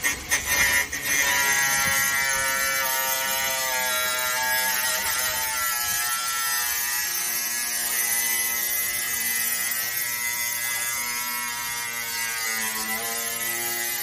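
Cordless angle grinder cutting through the van's sheet-metal side panel: a steady, loud motor whine whose pitch shifts as the disc bites, with a few sharp jolts in the first second.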